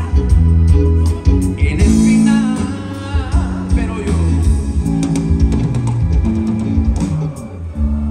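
A song performed by a singer over a band of guitar, bass and drums.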